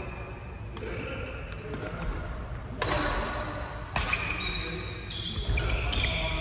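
Badminton rally: rackets strike the shuttlecock about once a second, five sharp hits in all, each ringing on in the hall.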